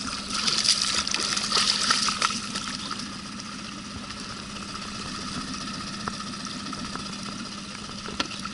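Water splashing at the side of an inflatable boat as a lenok is hauled in by hand, loudest for the first two seconds or so, then settling to steady river noise over a constant low hum.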